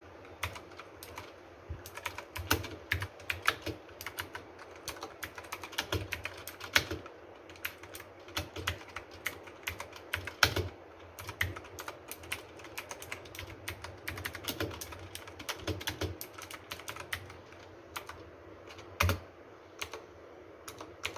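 Typing on a Cosmic Byte CB-GK-23 Artemis mechanical keyboard fitted with case foam and PBT keycaps: an irregular stream of key clicks with short pauses, and one heavier, deeper keystroke near the end.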